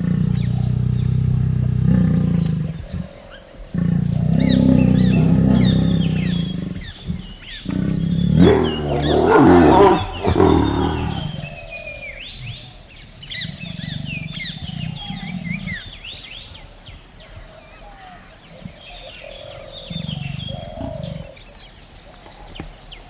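Tiger growling in long, low rumbles, with one louder roar about eight seconds in, followed by quieter growls. Birds chirp throughout.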